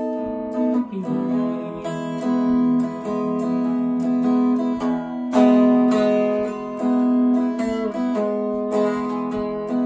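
Telecaster-style electric guitar, picked note by note, playing a country melody over chords, with no singing.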